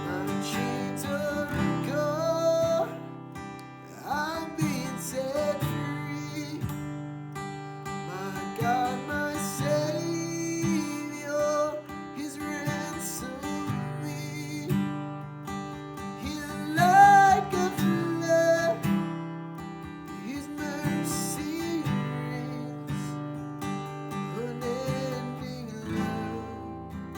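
Strummed acoustic guitar playing worship music, with a melody line carried above the chords.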